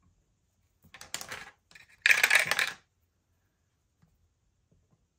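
Dice clattering through a plastic dice tower and landing in its tray: a short rattle about a second in, then a louder clatter about two seconds in.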